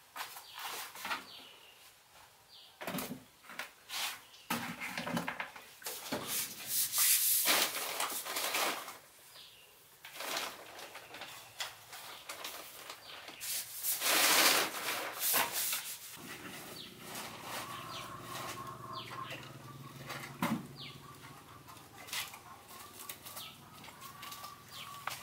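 Handling noises around a small gasoline water pump: a plastic oil jug and bucket knocking and scraping on a concrete floor, and liquid poured through a funnel into the pump, in uneven clatters and short noisy bursts. Birds or chickens call faintly in the background.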